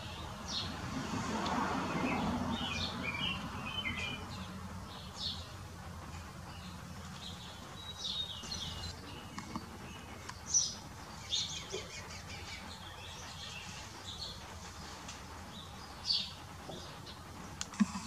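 Backyard songbirds chirping and calling in short, scattered notes, some quick descending note runs and sharp single calls, over a steady low background hum. A low rumble swells and fades in the first few seconds.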